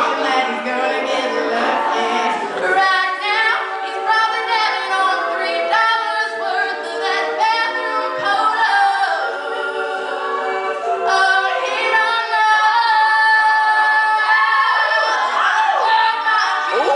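All-female a cappella group singing in harmony, with a soloist at a microphone over the other voices.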